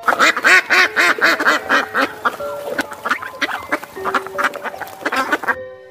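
Ducks quacking: a quick run of about five quacks a second in the first second and a half, then scattered softer calls.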